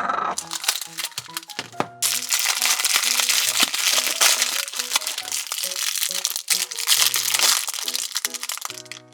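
Plastic wrapping crinkling as the layers of a toy surprise capsule are unwrapped, loud and continuous from about two seconds in, over light background music.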